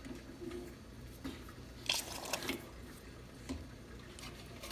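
Hot water spluttering and dripping from a Rocket espresso machine's hot water wand, with scattered drips and a short spurt about two seconds in.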